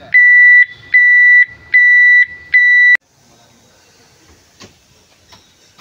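Tractor's electronic warning buzzer beeping four times in an even rhythm, each beep a steady high tone about half a second long. It cuts off abruptly about three seconds in, and a few faint clicks follow.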